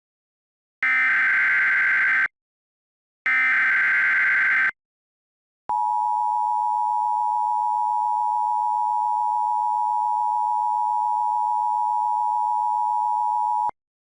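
Emergency Alert System tones: two SAME digital header bursts about a second and a half each with a short gap between them. Then, after a pause, the steady two-tone EAS attention signal, held for about eight seconds and cut off sharply.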